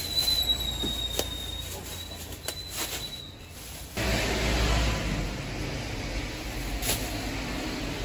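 Thin plastic produce bag rustling and crinkling as vegetables are put into it, over the steady low hum of a supermarket. A thin high squeal runs through the first three seconds or so. About halfway through, the background jumps to a louder, fuller hum.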